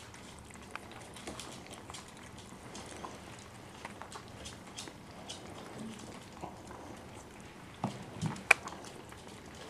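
Miniature pinschers' claws ticking and pattering on a hard floor in scattered light clicks, with a few louder knocks about eight seconds in.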